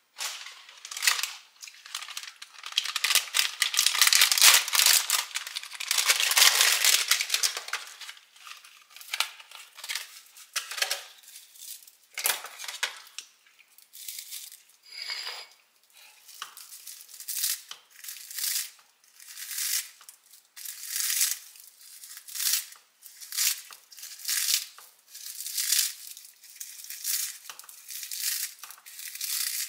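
Loud crinkling and rustling for the first several seconds, then kitchen scissors cutting through a sheet of seasoned dried nori (seaweed) in short crisp snips, roughly one every second or so.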